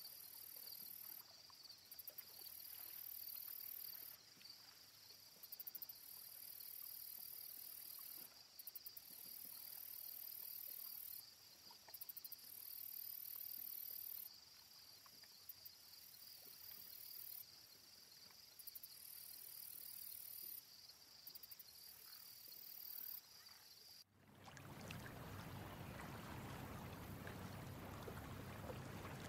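Crickets and other insects chirring: a steady high trill, with a higher, louder trill that switches on and off every second or two. About 24 seconds in it cuts off abruptly and gives way to a steady wash of moving water.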